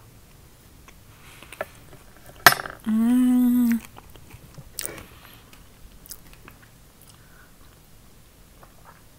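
A woman tasting a spoonful of creamy curd mousse: a lip smack, then a loud closed-mouth "mmm" of enjoyment held for about a second, followed by soft chewing and mouth clicks.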